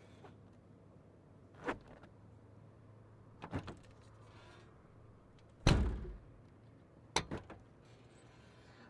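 A trunk lid being worked: four separate clunks and thuds, the third and loudest a heavy slam about halfway through, the last followed by a couple of smaller knocks.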